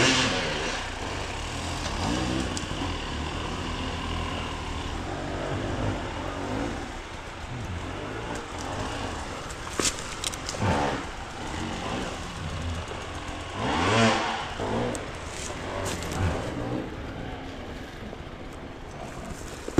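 Off-road enduro motorcycle engine running over rough terrain, revving up and dropping back in pitch a few times, with the loudest rev about two-thirds of the way through; a few sharp knocks come shortly before the middle.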